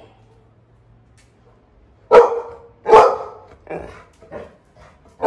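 Yellow Labrador retriever barking. About two seconds in come two loud barks a second apart, then three shorter, softer ones.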